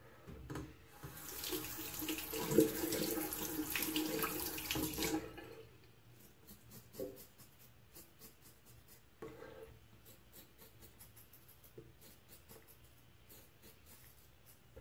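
Water tap running into a bathroom sink for about four seconds, then stopping. After it, faint short scrapes of a Merkur Progress adjustable safety razor cutting stubble through lather on the upper lip.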